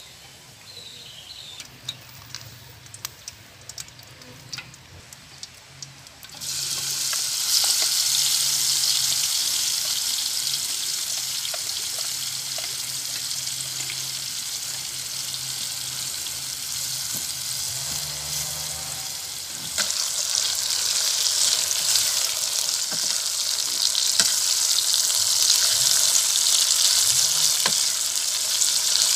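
Chopped red chilies and tomatoes frying in hot oil in an aluminium pot, stirred with a spoon. The sizzle starts suddenly about six seconds in, after a few faint clicks, and gets louder again about twenty seconds in.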